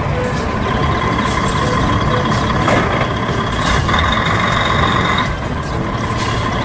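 A heavy truck engine running steadily: a low rumble with a constant high whine over it.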